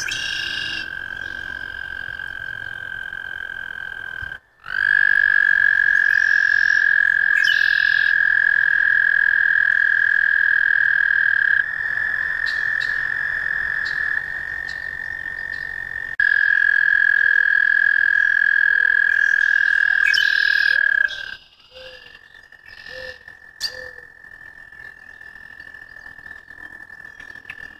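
American toads trilling: long, steady, high musical trills with a brief break about four seconds in. The trill is loud until about twenty seconds in, then a fainter trill carries on to the end.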